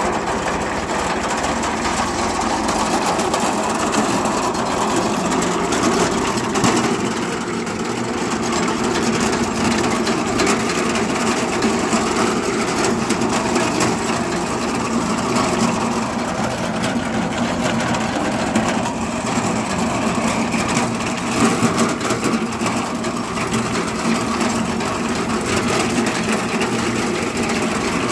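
Tractor-mounted Sitara multi-crop reaper cutting wheat: a dense, steady mechanical clatter of the reciprocating cutter bar and conveyor over the running tractor engine.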